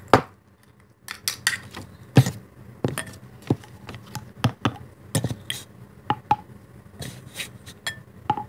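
Irregular light clicks and taps of hard plastic: a toy baby bottle and a plastic Easter egg used as pretend formula being handled and knocked together while the bottle is filled.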